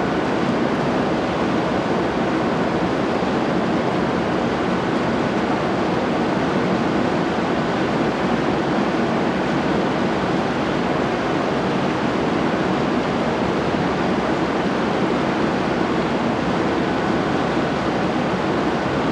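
Steady, even rushing noise of an E7 series Shinkansen standing at the platform with its systems running, unchanging throughout.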